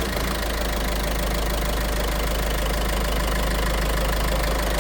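Peugeot 1.5 HDi four-cylinder diesel engine idling steadily just after starting, with a new camshaft chain and tensioner fitted. The chain knock is gone.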